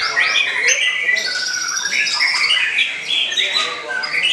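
White-rumped shamas singing at once: a dense, unbroken tangle of fast whistled phrases, sliding notes and trills overlapping one another.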